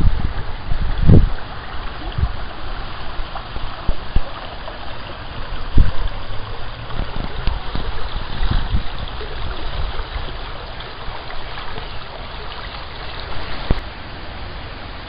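Brook water running over stones, a steady rushing hiss. A few low thumps on the microphone stand out in the first second and about six seconds in.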